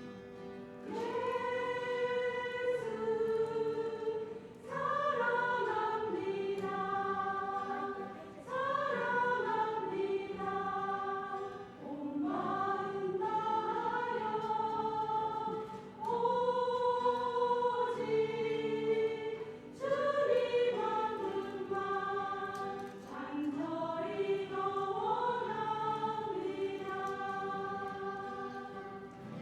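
Church choir singing a hymn in phrases of held notes a few seconds long, with short breaks between phrases.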